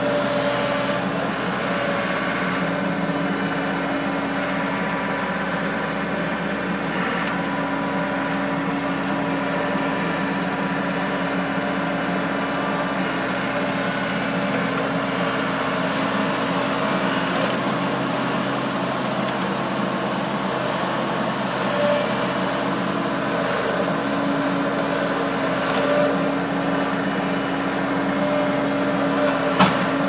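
1980 Case 1845 skid-steer loader's engine running steadily under load while the loader pushes over a tree. A single sharp crack sounds near the end.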